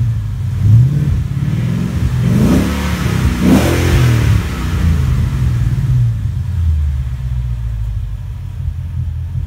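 2013 Mustang GT's 5.0-litre V8 breathing through Borla-built Ford Racing Touring axle-back mufflers and a Borla X-pipe, revved in about three quick blips in the first four seconds, then dropping back to a steady idle.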